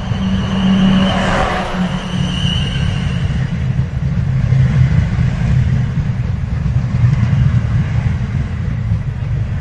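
Train pulling in to a station platform: a heavy, steady low rumble. A thin high whine runs for the first three seconds or so and fades, and a brief rush of higher noise comes about a second in.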